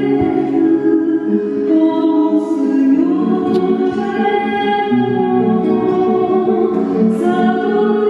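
Choral music: several voices singing long held notes together, moving to a new chord every second or two.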